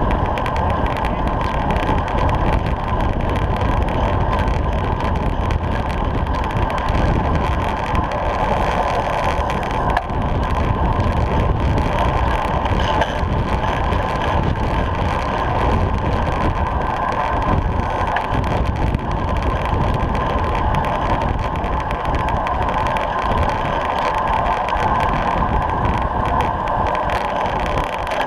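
Steady wind noise on a rear-mounted GoPro's microphone, mixed with the hum of road-bike tyres on tarmac, while racing in a bunch at about 25 to 30 mph.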